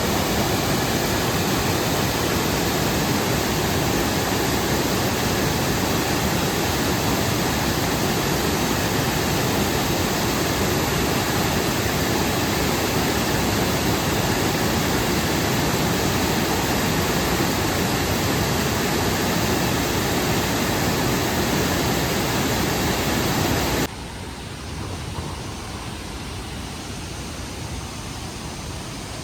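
River water rushing in a steady, loud wash of noise. About four-fifths of the way through it drops suddenly to a quieter, duller rush.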